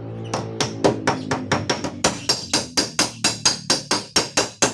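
Fast, even hammer taps on a car's steel door panel, about five a second, each with a bright metallic ring. Background music holds steady notes through the first two seconds.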